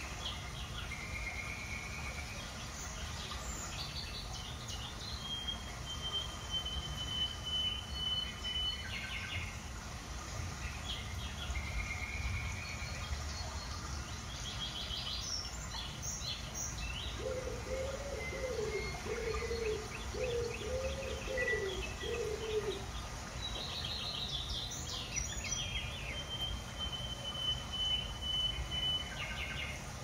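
Small birds chirping and trilling, with now and then a thin held whistle lasting a few seconds, over a steady low background rumble. About halfway through, a lower wavering call repeats five or six times over roughly five seconds.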